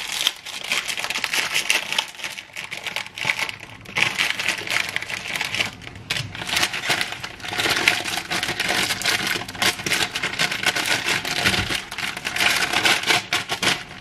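Crinkling and rustling of a plastic food packet being handled and opened, a dense crackle of fine clicks that comes and goes in waves.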